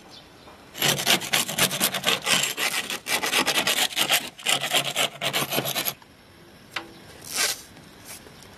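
Hand scraper scraping a rough stucco exterior wall in quick back-and-forth strokes, several a second, stopping about six seconds in: surface preparation before repainting. A couple of short single rasps follow near the end.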